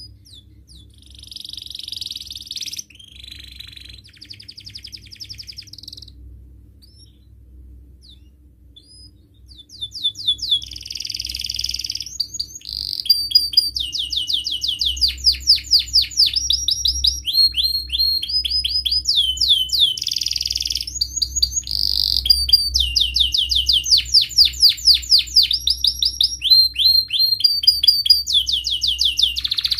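Domestic canary singing in a cage. It opens with short warbling phrases, then gives a few scattered single chirps in a quieter stretch, and from about ten seconds in sings loudly and almost without a break in fast rolling trills of repeated notes. A faint steady low hum runs underneath.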